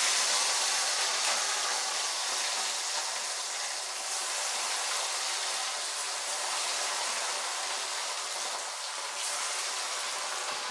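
Pieces of marinated rohu fish frying in very hot oil in a kadhai: a steady, high-pitched sizzling hiss, loudest just as the fish goes in and easing a little afterwards.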